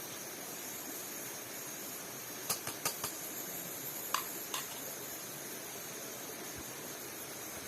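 Steady outdoor background hiss with faint high-pitched bands, broken by a few light clicks and taps between about two and a half and four and a half seconds in.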